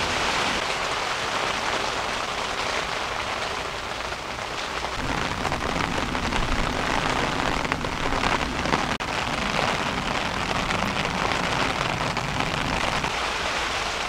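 Heavy rain falling steadily on a dome tent's fabric.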